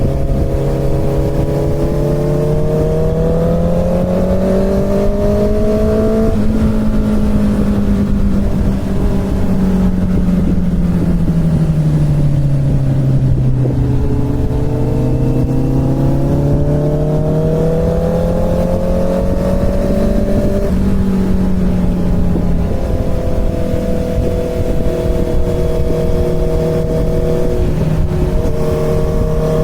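Inline-four sport motorcycle engine under way, revs climbing and falling as the bike accelerates and slows, with a few upshifts where the pitch drops suddenly. Wind rush runs underneath.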